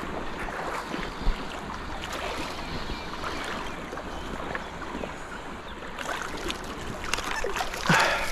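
River water rushing and splashing, with a louder splash near the end.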